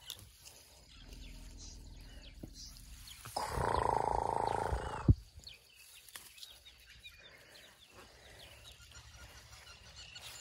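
An elephant calf gives one loud, rough roar lasting under two seconds, about three and a half seconds in, ending with a sharp click.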